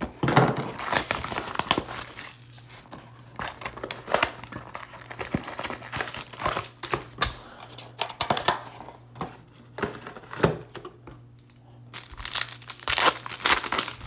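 Topps Finest baseball card box and its foil packs being handled and unwrapped: irregular crinkling and rustling of the pack wrappers, with a dense burst of crinkling and tearing near the end as a pack is opened.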